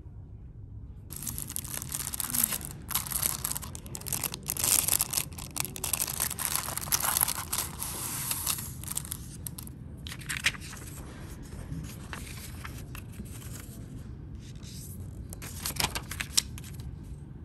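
Irregular crinkling and rustling, busiest through the first half, with a few short flurries later.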